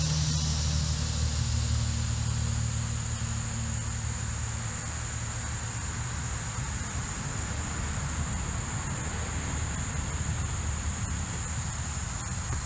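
Steady, high-pitched drone of insects, with a low hum that fades away over the first half.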